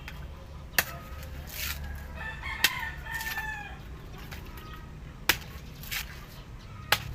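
A machete chopping into a coconut's husk to strip it: four sharp strikes about a second and a half to two and a half seconds apart. A rooster crows once, about two seconds in.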